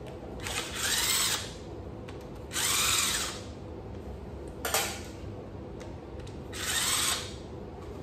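Cordless power tool spinning off the caps over the intake cam (AVCS) sprockets of a Subaru WRX engine. It runs in three bursts of about a second each, the motor pitch rising and falling within each, with a short click between the second and third.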